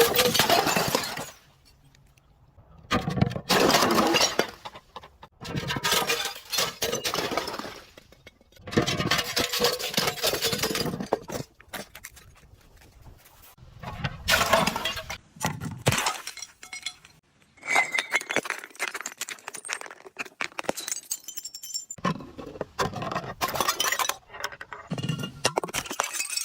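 Glass bottles breaking and being crushed, crackling and clinking in about eight separate bouts with short pauses between them.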